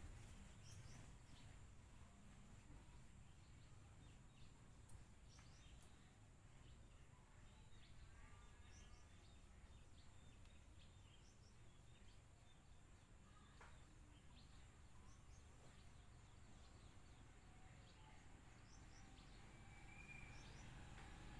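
Near silence: faint outdoor background hum with scattered faint bird chirps.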